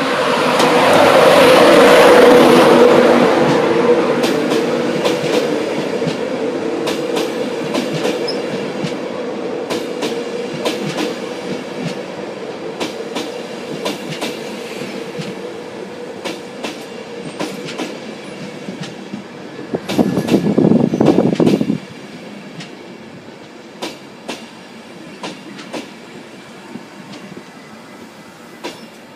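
East Coast InterCity 225 train running into the platform: a loud rush as the leading cab end passes, then the Mark 4 coaches rolling past with wheels clicking over rail joints as the rumble fades. About twenty seconds in, a louder rumble lasts two seconds and cuts off suddenly.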